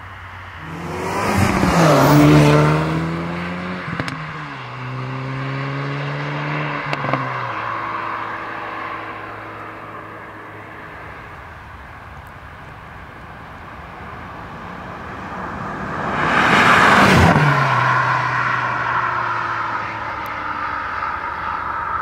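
Hyundai i30 N Fastback's turbocharged four-cylinder driving past twice at speed. About two seconds in the engine note peaks and drops in pitch as it goes by, steps down with a gear change and pulls away, fading. A second pass-by comes about seventeen seconds in, again dropping in pitch and fading away.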